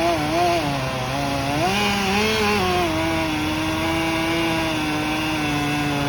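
Two-stroke chainsaw running. Its pitch wavers up and down as the engine speed changes, then holds steady from about three seconds in.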